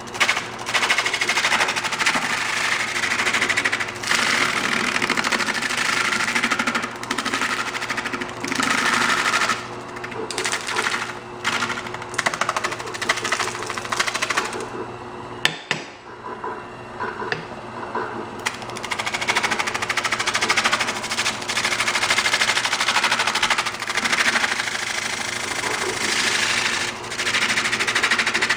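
Lathe spinning an out-of-round insulation-foam disc while a spindle gouge cuts it, a rough, rapid chattering as the tool bites the uneven foam over the steady hum of the lathe motor. The cutting breaks off briefly now and then, most clearly about halfway through.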